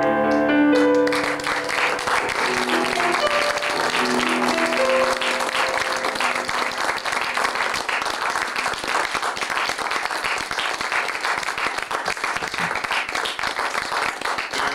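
Piano music ends about a second in and an audience applauds, the clapping running on steadily; a few held notes of the music linger under the clapping for the first few seconds.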